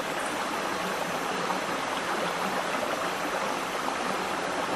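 Steady rushing of running water from a forest stream, an even hiss with no distinct events.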